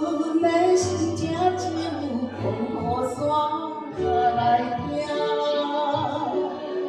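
A woman singing into a microphone over a karaoke backing track, with long held notes that slide gently in pitch above a steady bass accompaniment.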